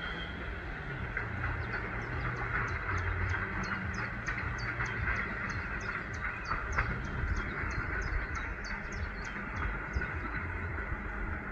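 ED4M electric multiple unit pulling away on the far track with a low steady rumble of its motors and wheels. Over it, a bird repeats a short high chirp about three times a second, stopping near the end.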